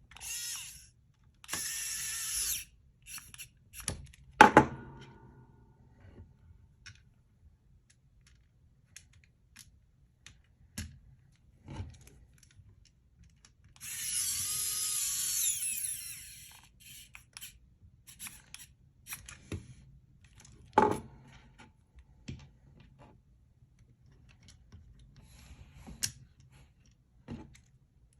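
Small electric screwdriver whirring in two runs of a couple of seconds, about a second in and again around the middle, driving the screws back into an Xbox One controller's plastic back shell. Sharp clicks and knocks of the plastic being handled come between them.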